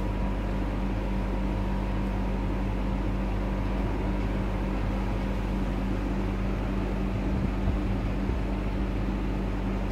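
Steady low hum with an even background hiss, unchanging in level.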